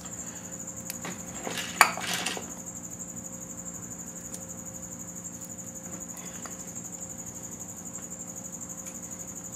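Hand work oiling and wiping a cylinder of an engine block: a single sharp click about two seconds in, followed by brief rubbing. A steady hum with a high, thin whine runs underneath.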